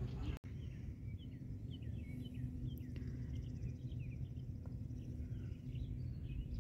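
Several birds chirping in short, quick notes, over a low rumble of wind on the microphone.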